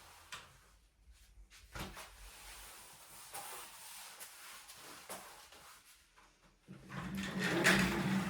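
Household tidying: small clicks and knocks of objects being handled, then, about a second and a half before the end, a louder, longer sliding, scraping noise such as a drawer or cupboard being moved.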